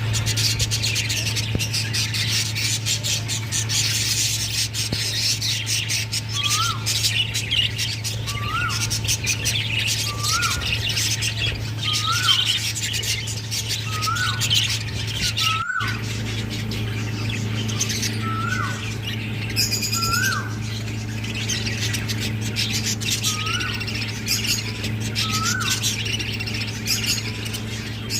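Parrots chattering and squawking in a dense, continuous din. Through the middle a short call that swoops upward in pitch repeats about every second and a half, over a steady low hum.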